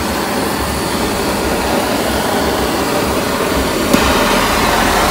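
MAP gas blowtorch burning with a steady rushing hiss as its flame heats a rubber suspension bush, to break the bush's seal so it presses out more easily. A single sharp click about four seconds in.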